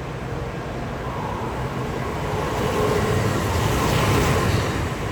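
Shinkansen bullet train passing through the station, its rushing noise building to a peak about four seconds in and then easing.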